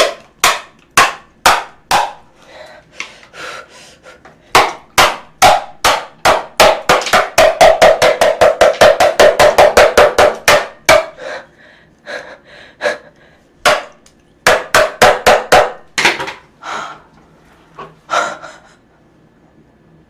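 Repeated hard blows smashing the shell of a large cooked lobster. The blows come slowly at first, then in a fast run of about four a second in the middle, then scattered ones that stop near the end.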